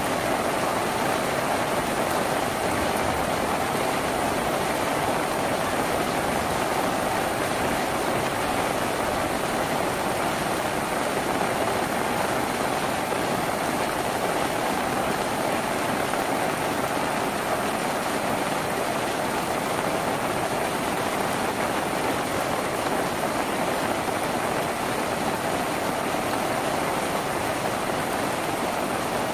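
Steady rain drumming on a tin roof, an even, unbroken patter.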